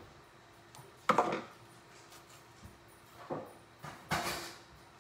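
Kitchen handling sounds: a sharp knock about a second in, like a container or dish set down on the counter, a softer knock later, then a rustling tear near the end as a banana is peeled, over a faint steady hum.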